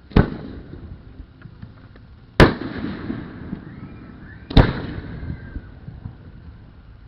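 Aerial fireworks shells bursting: three sharp booms about two seconds apart, each trailing off for a second or more.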